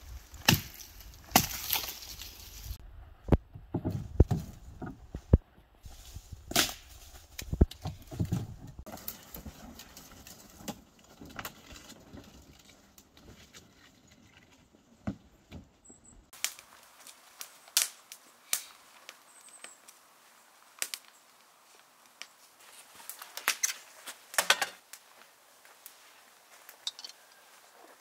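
Dry dead branches snapping and cracking as deadfall is broken up for firewood, a quick run of sharp cracks. After about halfway the sound changes to lighter, sparser clicks and knocks.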